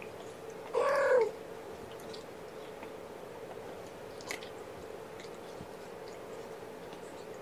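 A single cat meow about a second in, lasting about half a second and rising then falling in pitch, over a steady faint hum.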